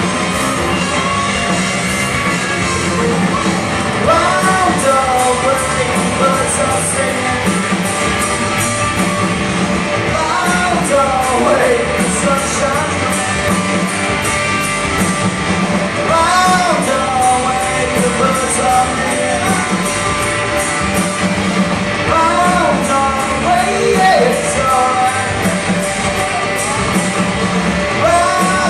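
Live rock band playing loudly, with drums keeping up constant cymbal hits under guitars. A lead singer comes in about four seconds in and sings repeating phrases.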